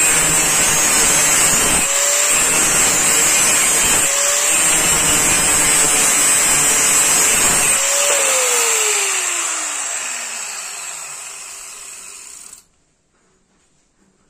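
Handheld electric angle grinder grinding the edge of a steel knife blade, its disc briefly lifted off the steel about every two seconds. About eight seconds in it is switched off and winds down, its whine falling steadily in pitch as it fades, then the sound cuts to near silence.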